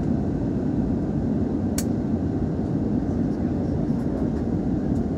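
Steady cabin noise of an easyJet jet airliner in flight: engine and airflow rumble heard from inside the cabin, with a single sharp click about two seconds in.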